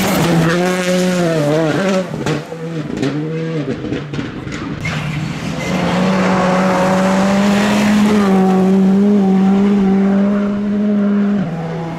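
Škoda Fabia Rally2 cars' 1.6-litre turbocharged four-cylinder engines at high revs on a gravel stage. The first car's revs rise and fall through gear changes, then there are sharp cracks and gravel noise as it goes by. From about six seconds a second car holds steady high revs, with a gear change near eight seconds.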